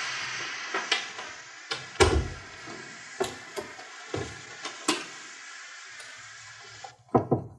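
Off-screen train noise, a steady hiss, slowly fading away, with a string of sharp knocks and door slams over it; the heaviest slam, with a low thump, comes about two seconds in. The sound cuts off abruptly near the end.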